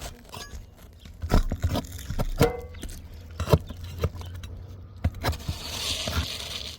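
Roof tiles being handled and set, knocking and clinking against each other, some knocks with a brief ring, with a longer scrape near the end.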